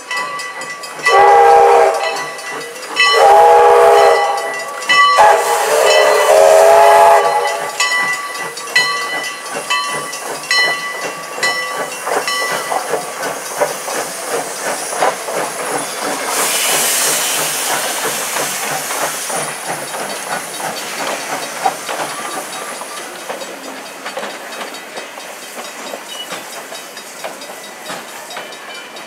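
Steam locomotive CPR 2024's chime whistle sounds three blasts, the third the longest. The engine then moves off with a steady running clatter of wheels on rail and a burst of steam hiss a little after halfway, growing fainter toward the end.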